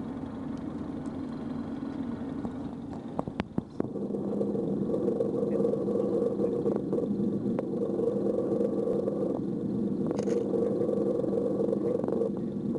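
A boat's engine running steadily, its hum growing louder about four seconds in, just after a few sharp knocks.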